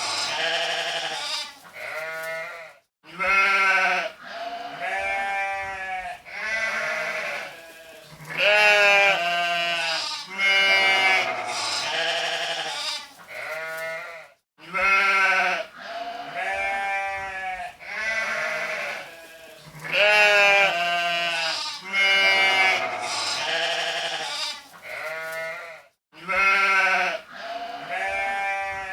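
Sheep bleating over and over, one wavering call after another, each a second or two long. The same run of bleats repeats about every eleven to twelve seconds, as a looped recording.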